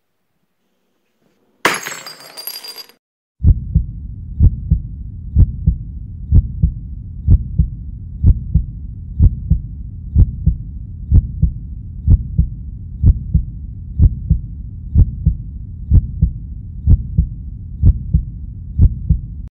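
A sudden crash about two seconds in, then a slow heartbeat sound effect: a low double thump (lub-dub) about once a second, keeping an even pace.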